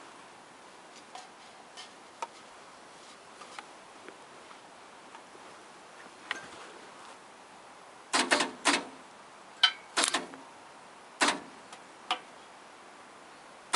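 Short crackling bursts of a welding arc striking on a steel exhaust muffler, like quick tack welds: a cluster of three about eight seconds in, then single bursts near ten, eleven and twelve seconds. Before them there are only faint ticks and handling clicks.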